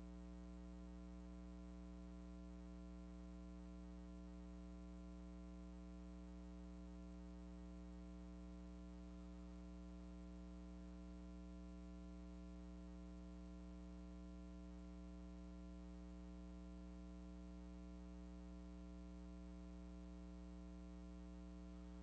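Steady electrical mains hum with its evenly spaced overtones, unchanging in level and faint. No other sound is picked up.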